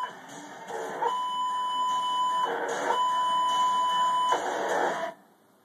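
Broadcast censor bleeps, a steady high beep played through a TV speaker: a brief one at the start, then two long ones of about a second and a half each, masking a racing driver's expletives over hissy team-radio audio. The sound cuts off about five seconds in.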